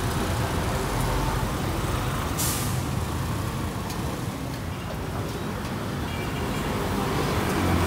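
Street traffic noise: engines of passing vehicles running steadily, with a short sharp hiss about two and a half seconds in.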